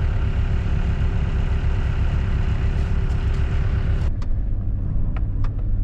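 A vehicle engine running steadily with a low, even pulsing. About four seconds in the sound changes abruptly to a smoother low drone with a few sharp clicks.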